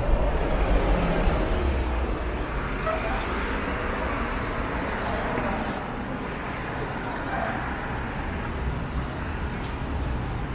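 City street traffic: a steady wash of passing cars and buses with a low engine rumble, a little louder in the first couple of seconds.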